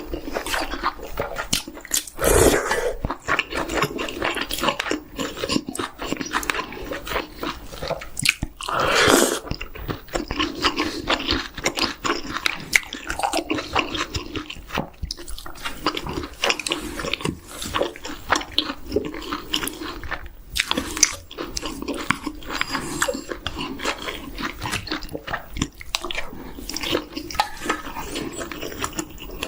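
Close-miked biting and chewing of chicken, wet mouth sounds and crunches going on continuously, with two louder bites about two and a half seconds and nine seconds in.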